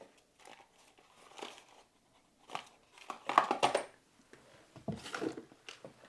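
Small cardboard boxes and plastic parts bags being handled and set down on a workbench cutting mat: a few short bursts of rustling and crinkling, the loudest about three and a half seconds in.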